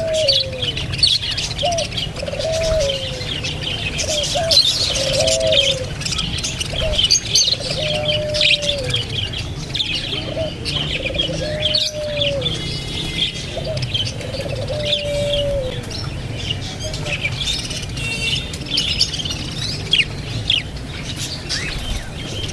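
Many birds chirping at once, with a lower cooing call repeating about every second and a half that stops about two-thirds of the way through, over a steady low hum.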